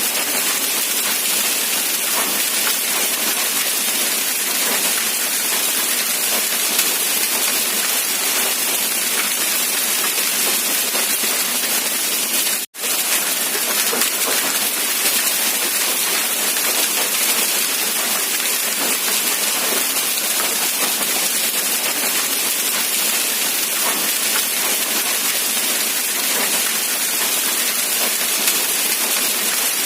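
Steady rain falling, an even hiss without distinct drops, with a momentary cut to silence a little before halfway.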